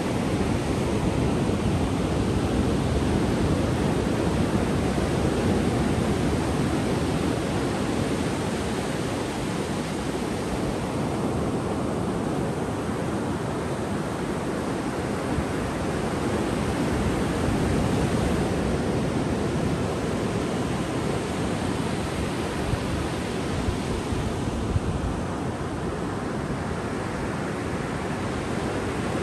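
Ocean surf breaking and washing up a sandy beach: a continuous rushing that slowly swells and eases over several seconds. A couple of brief, sharp sounds stand out about three-quarters of the way through.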